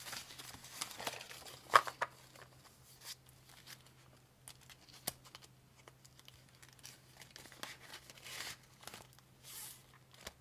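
Crinkling and rustling of clear plastic zip pouches and paper bills as cash-envelope binder pages are handled and turned, with scattered short clicks; the loudest, a sharp tap, comes about two seconds in.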